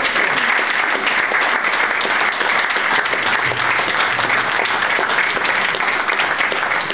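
Audience applauding, a dense and steady clapping.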